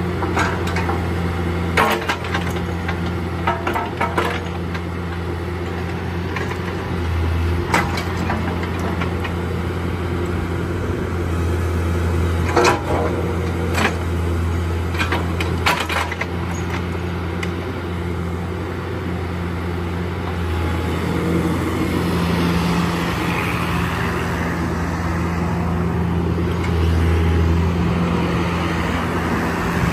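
Bobcat 331 mini excavator's diesel engine running steadily while the machine is operated, with several sharp knocks and clanks in the first half and a rougher, noisier sound building in the second half.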